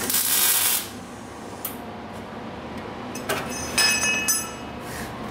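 TIG welding torch worked in short bursts under a car. There is a hiss in the first second, then about three seconds in a second burst with a steady high-pitched whine over the hiss, as tack welds are attempted.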